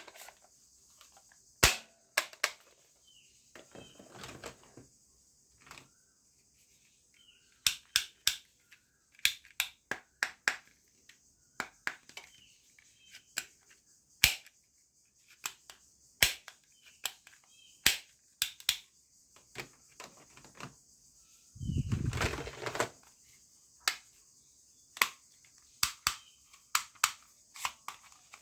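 Toy guns firing and clicking: sharp snaps spaced irregularly, some in quick pairs or short runs, with a longer, rougher rattling sound about 22 seconds in.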